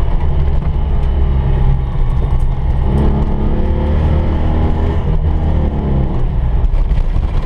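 Citroën 2CV's air-cooled flat-twin engine running hard, heard from inside the car, with the engine note growing stronger about three seconds in and easing off around six seconds.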